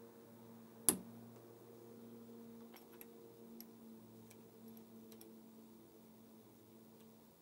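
Hand-tool work on a ride-on car's differential held in a vise: one sharp click about a second in, then a few faint light ticks as an Allen key is fitted into the screws of the diff case, over a low steady hum.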